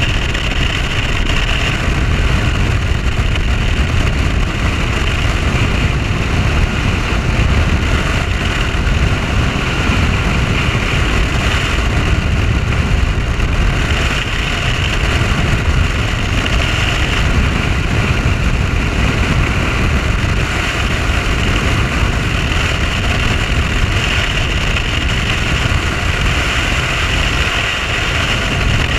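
Mercury OptiMax 150 two-stroke V6 outboard on a Nitro 882 bass boat running steadily at cruising speed, mixed with a steady rush of wind and water as the hull planes.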